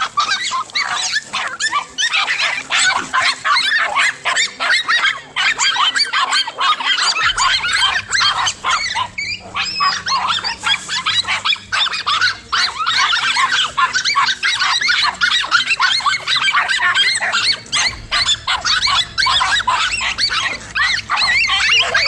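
Several dogs barking in rapid, overlapping bursts as they fight, several barks a second with hardly a pause.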